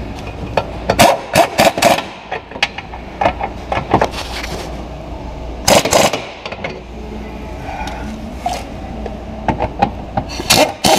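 Ratchet wrench on a socket extension working the rear subframe bolts of a BMW E36: spells of quick metallic clicking and scraping, coming in several short bursts.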